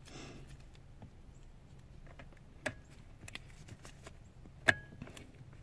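Light plastic clicks and rustling as wiring-harness connectors are pushed into a car's body control module. There are two sharper clicks, the second and loudest near the end as a connector snaps into place.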